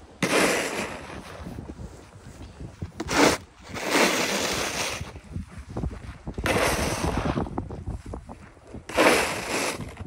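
Snow shovel scraping and pushing snow in five strokes about two seconds apart, one of them short and sharp, over a steady rumble of wind on the microphone.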